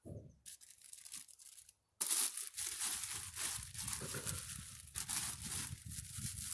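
Plastic bags crinkling and rustling as they are handled: a carrier bag and a bag of salad lettuce being pulled out. The crinkling is quieter at first and becomes much louder and continuous about two seconds in.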